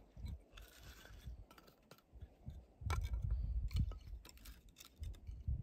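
Split dry kindling sticks knocking and clacking against each other as they are laid into a stack by hand, a scatter of light wooden clicks. A low rumbling noise joins in about halfway through.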